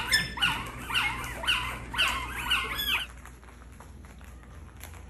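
Newborn puppies crying in high, repeated squeals, about two a second, which stop abruptly about three seconds in, leaving only faint small clicks. The puppies are hungry and crying for their mothers.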